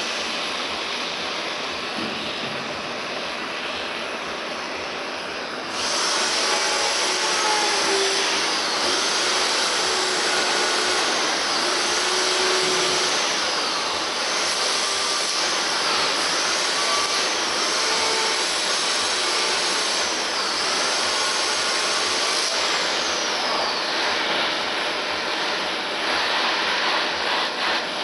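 Gas torch flame hissing steadily while heating the weld seams of a steel windscreen frame for tinning. It gets louder and brighter about six seconds in, with faint rising and falling sweeps in the hiss.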